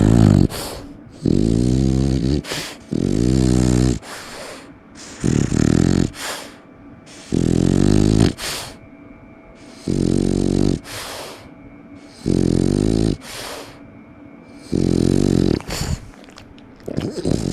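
French bulldog snoring: a loud snore roughly every two seconds, each about a second long, with quieter breathing between.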